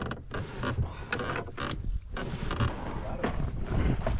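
Knocking and creaking of a loose clamp-on fitting on the side of a canoe as it is worked by hand. The fitting has still not been tightened. Low wind rumble on the microphone underneath.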